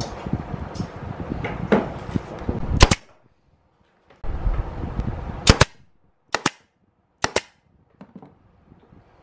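Pneumatic nail gun firing into plywood: four sharp shots from about three seconds in, most with a quick double snap of the shot and the return, over a steady workshop noise in the first part.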